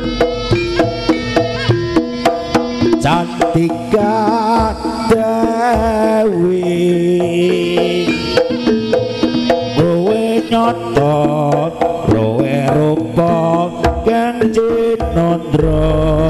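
Live Javanese jaranan music: kendang hand drums beat a steady pattern over sustained gamelan tones, with a wavering melody line in the middle. A deep bass tone drops out after about three seconds and comes back near the end.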